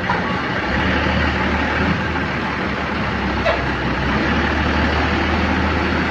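Tour bus diesel engine running with a steady low hum that swells up under a second in, over general road noise; no telolet horn is sounding.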